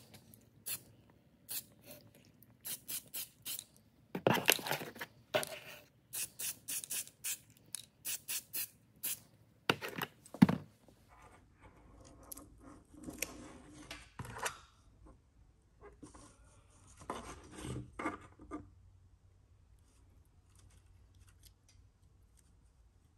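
An aerosol can spraying in many short hissing bursts over the first ten seconds or so, putting a light coat of conformal coating on a circuit board. Then, from about twelve seconds in, softer scraping and rubbing as masking tape is picked and peeled off the wet board.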